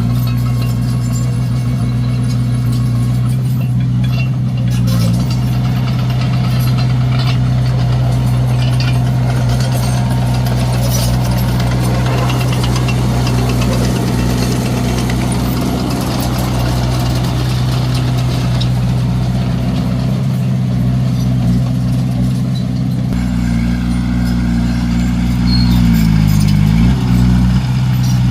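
Komatsu D21A bulldozer's diesel engine running steadily, with some scattered clatter; near the end its pitch briefly drops and recovers.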